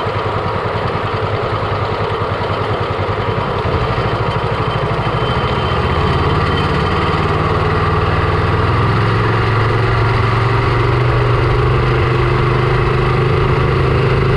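Predator 420cc 13 hp single-cylinder engine of a longtail mud motor running steadily, growing a little louder about four to six seconds in.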